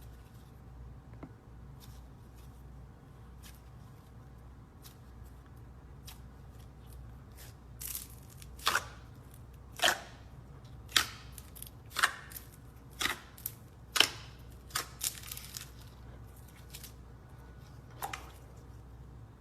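Slime being squeezed and stretched by hand, giving a run of sharp popping snaps about once a second through the middle stretch, with faint clicks before and one more pop near the end.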